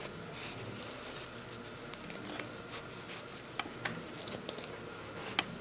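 Quiet rustling and scrunching of a cloth toy body as stuffing is packed into it with a wooden stick, with a few faint sharp clicks.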